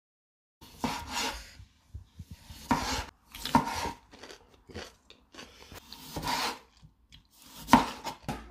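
A kitchen knife slicing a cucumber on a cutting board: a run of uneven cuts, each a short rasping stroke through the cucumber ending on the board, starting about half a second in.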